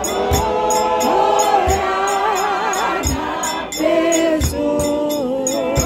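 Choir of several voices singing a gospel-style hymn in harmony, the held notes wavering with vibrato. Under it runs a steady high ticking beat about three times a second, with occasional low drum thumps.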